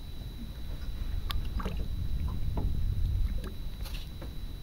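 Water lapping and slapping against a small boat's hull on calm sea, over a steady low rumble, with a series of short sharp knocks and brief squeaks from about a second in.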